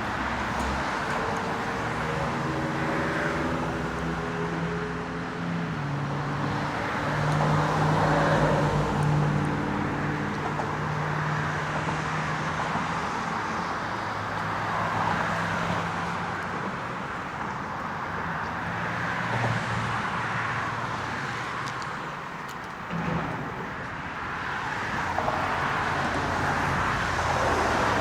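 Road traffic passing on a bridge: steady tyre and engine noise that swells as vehicles go by, with one vehicle's engine drone standing out through the first half.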